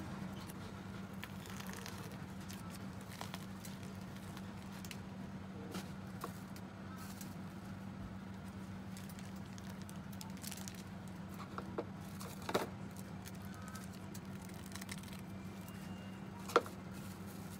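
Work sounds at a crepe stand: light scattered clicks and crackles over a steady electrical hum, with a sharper click about a second before the end.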